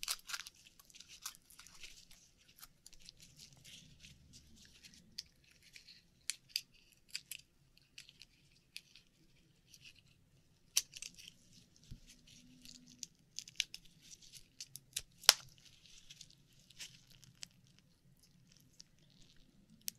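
Faint handling sounds of Akoya oysters being opened by hand for their pearls: scattered small clicks, scrapes and crinkling, with a louder sharp click about fifteen seconds in.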